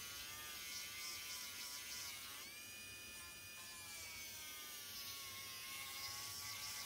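Small handheld rotary tool spinning a titanium burnishing bit against a leather edge: a faint motor whine whose pitch wavers, dipping and then jumping up about two and a half seconds in and sagging slowly after. The owner says the worn tool is near the end of its life and runs unevenly.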